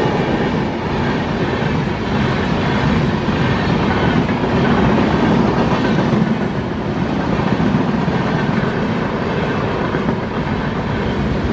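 Long train of LHB passenger coaches passing close by at speed: a steady, loud rumble and rattle of wheels on rail.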